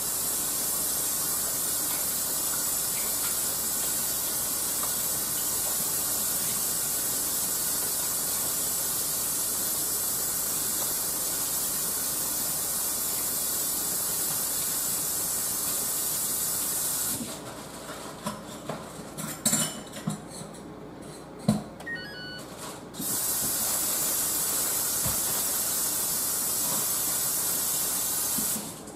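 Kitchen sink tap running steadily during hand washing, shut off for about six seconds in the middle with a few small clicks and knocks, then on again and turned off near the end.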